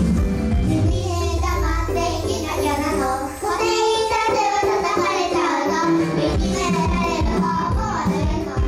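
Young girls of a children's idol group singing a pop song in unison over a backing track with bass and drums; the bass drops out briefly a couple of seconds in, then comes back.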